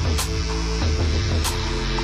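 Background music: held chords over a deep, steady bass, with a brief hiss-like accent twice.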